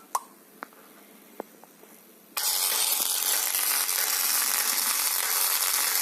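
Xiaomi Mi Pad 2 tablet speaker wheezing: after a few faint ticks, a loud, even hiss starts suddenly about two and a half seconds in and holds steady. The hiss is the speaker fault.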